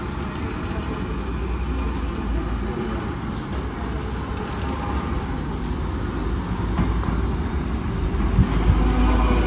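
Rusich metro train approaching along the platform: a steady rumble of wheels and traction motors that grows louder, with a couple of knocks near the end.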